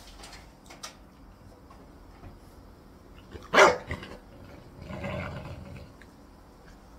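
English bulldog puppy barking once, sharp and loud, at an adult bulldog holding a chew, then a longer, lower growling sound about a second later.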